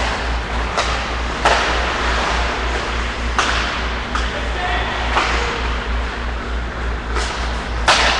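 Hockey sticks and pucks cracking sharply on the ice and boards, about five times, each crack echoing around the rink over a steady low hum.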